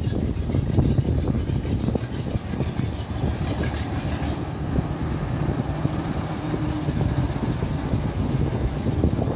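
A small narrow-gauge diesel locomotive's engine running steadily at a low, throbbing pitch as the locomotive approaches along the track.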